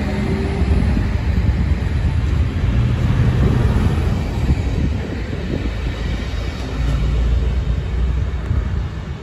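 DSB IC3 (class MF) diesel multiple unit moving through the station: a steady low diesel rumble with wheels running on the rails, swelling again about seven seconds in.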